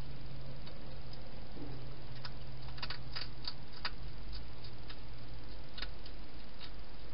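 Wild hedgehog feeding at a bowl: irregular small sharp clicks, with a quick run of them about three seconds in, over a steady low hum.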